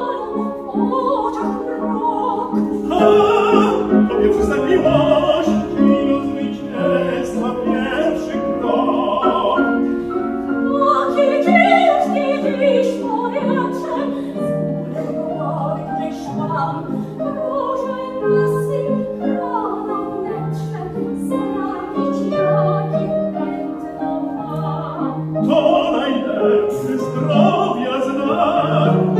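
Operatic singing with grand piano accompaniment.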